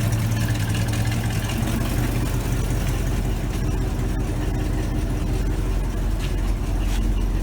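1977 Chevy pickup's engine running steadily with a constant low hum.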